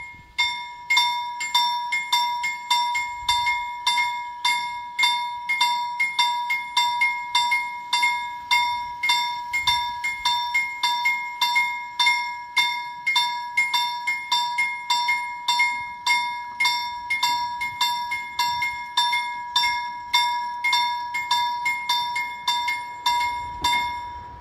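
Swedish railway level-crossing warning bell striking rapidly and evenly, a bright ringing tone with every stroke, as the crossing activates. It cuts off near the end, once the barrier booms are down.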